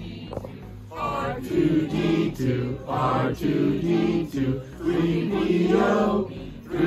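A group of adults singing a chant-like song together in rhythmic phrases, starting about a second in.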